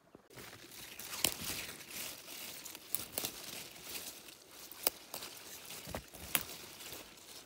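Rustling and crinkling that starts abruptly, with sharp snaps scattered irregularly through it, the loudest about a second in.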